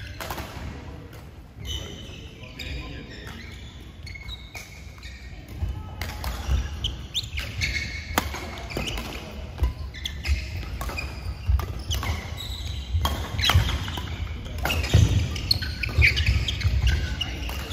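Badminton doubles rally: sharp racket strikes on the shuttlecock, court shoes squeaking on the court mat and thudding footsteps, getting busier about six seconds in. Players' voices in the background.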